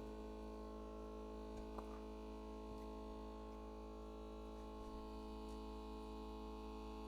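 Steady electrical hum with several fixed tones, and a couple of faint clicks a little under two seconds in.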